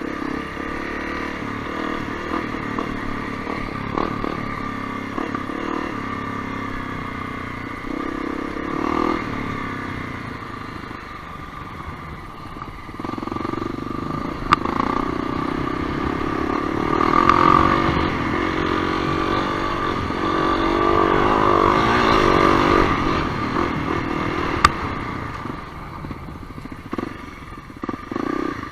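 Honda CRF250L's single-cylinder four-stroke engine running on a trail ride, its pitch rising and falling as the throttle is worked. Two sharp knocks come through, one about halfway through and one near the end.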